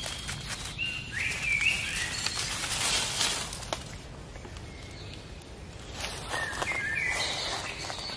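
A bird calls twice, about five seconds apart, each time a short chirping phrase that slides up and then steps between notes, over a steady crackle of small clicks and rustling.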